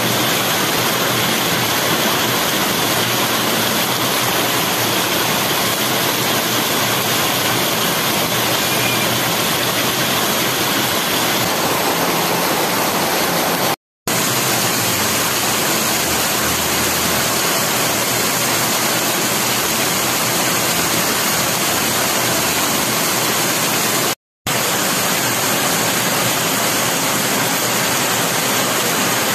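Heavy monsoon rain pouring down onto a flooded street: a loud, steady hiss. It cuts out for a split second twice.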